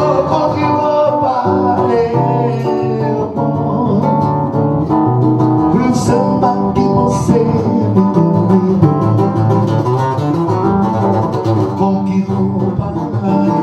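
Live samba music: an instrumental passage between sung verses, led by guitar.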